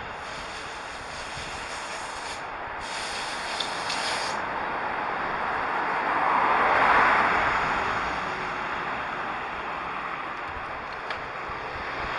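Steady rushing of wind and road traffic heard while riding a bicycle along a street. It swells to its loudest a little past halfway through, then fades again.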